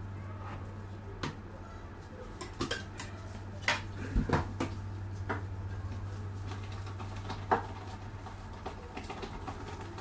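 Scattered clinks and knocks of a metal palette knife and kitchen utensils against the cake board and counter, most of them bunched in the first half, over a steady low hum.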